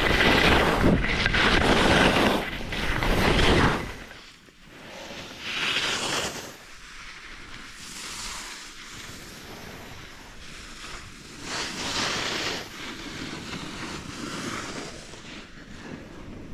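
Wind rushing over the microphone and skis scraping on packed snow during a downhill ski run, loud for about the first four seconds. It then drops to a quieter hiss with two brief swells of higher-pitched snow or wind noise.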